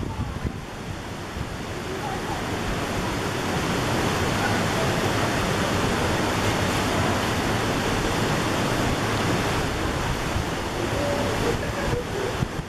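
Steady rushing noise of wind on the microphone and moving water, growing louder about three seconds in, with faint voices underneath.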